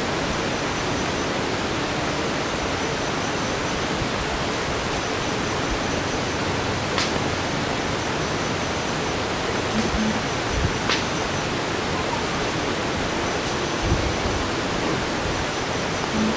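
A steady, even hiss, with two faint clicks about seven and eleven seconds in.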